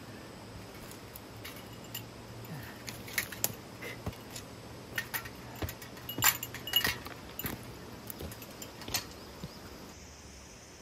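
Small metal items jangling and clinking irregularly, like keys or metal gear knocking together while someone walks, with the loudest clinks about two-thirds of the way through.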